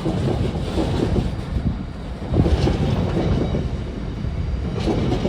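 Loaded intermodal container freight train rolling past, its wagons rumbling and clattering on the track, with a few louder knocks about two and a half seconds in.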